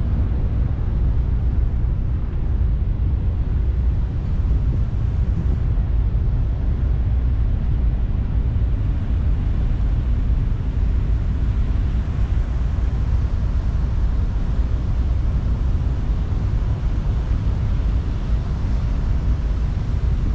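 Steady low rumble of a BC Ferries car ferry under way, its engines and propeller wash churning the water astern.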